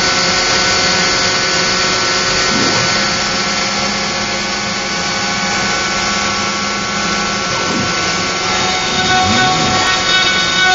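Joe's 4x4 Hybrid CNC router with its router spindle running steadily and cutting into a pine blank. Brief whines slide up and down in pitch a few times as the machine moves.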